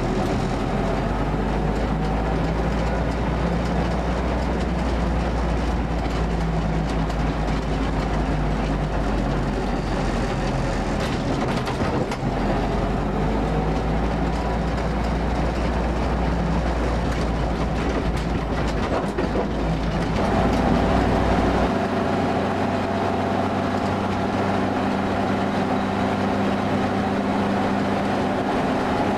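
Vintage military Jeep heard from on board while driving: engine running with road, wind and rattle noise. About two-thirds of the way through, the engine note shifts to a new pitch and the deepest rumble drops away as the Jeep takes a wider road.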